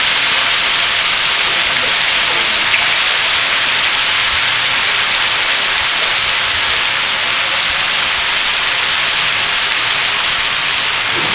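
Fresh anchovies frying in hot cooking oil: a loud, steady sizzle.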